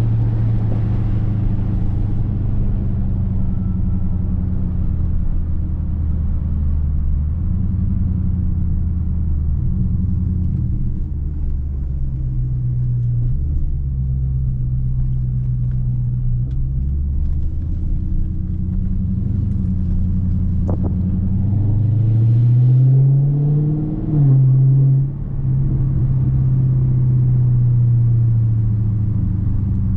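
2019 Dodge Charger Scat Pack's 6.4-litre HEMI V8 running under way with a loud exhaust, its engine note shifting with speed. About 22 seconds in the revs rise, there is a brief dip in level, and then it settles back to a steady run.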